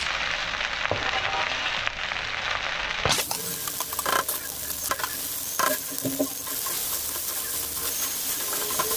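Cooked rice sizzling as it is tipped into a hot aluminium kadai of fried egg, a dense hiss for about the first three seconds. Then a steel spatula stirring and scraping the rice around the pan, with sharp scrapes and clinks against the metal over a steady frying sizzle.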